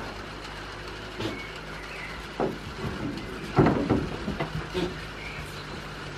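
A few short knocks and thumps over a steady low hum, with the loudest cluster of knocks about three and a half seconds in.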